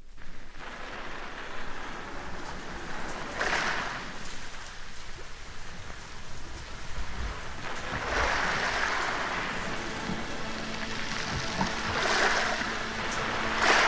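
Sea waves washing in as a sound effect opening the record, a swell about every four seconds, played back from a 7-inch vinyl single. The song's music comes in at the very end.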